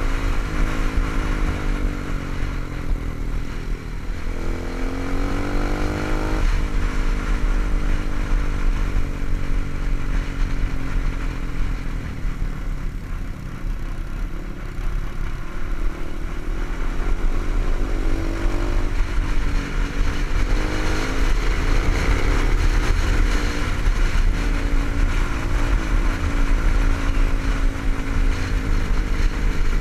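Motorcycle engine running under way, heard from a helmet-mounted camera, with steady wind rumble on the microphone. The engine note climbs as it accelerates about four seconds in, drops at a gear change about two seconds later, and climbs again near the twenty-second mark.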